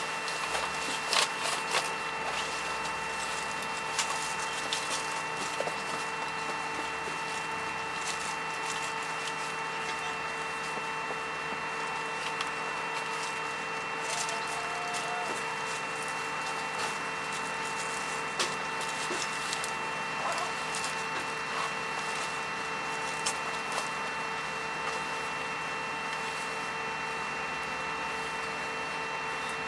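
Express passenger boat's engines running steadily: a constant drone with a high whine that never changes, with scattered light clicks and knocks.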